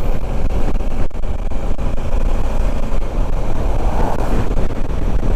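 Honda Africa Twin 1100 motorcycle under way on a wet road, gathering speed: steady wind rush on the microphone over the parallel-twin engine and tyre noise. An oncoming pickup truck passes about four seconds in.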